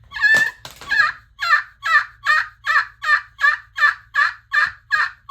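Friction turkey call played with a striker, giving a fast run of turkey yelps at about three notes a second, each note breaking from high to low.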